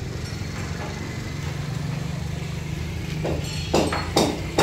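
Hammer blows on a construction site, starting about three seconds in and coming about two a second, over a steady low mechanical hum.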